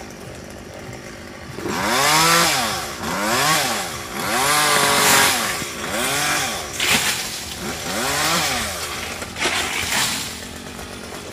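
Chainsaw cutting a coconut palm, its engine revving up and easing off about five times in quick succession after a quieter first couple of seconds.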